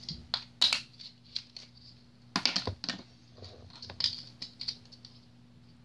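Light clicks and taps of small plastic toy-capsule pieces being handled and set down on a wooden floor, with a louder cluster of clatter about two and a half seconds in.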